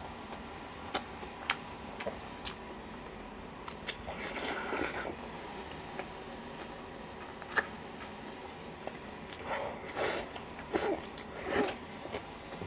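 Eating sounds: chewing and mouth noises with scattered sharp clicks of chopsticks, a longer breathy rush a little after four seconds, and a run of louder chewing smacks near the end.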